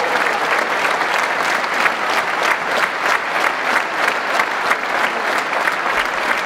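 Concert-hall audience applauding, the clapping settling into a steady rhythmic beat of about three claps a second.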